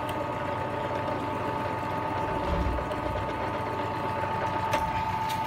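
A 1/3 HP bench drill press's electric motor running steadily with an even whine, two light clicks near the end.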